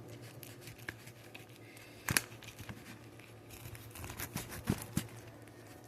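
Knife cutting a grilled sandwich in half through its toasted bread: faint crunching and scraping, with a sharp click about two seconds in and a run of small ticks later on.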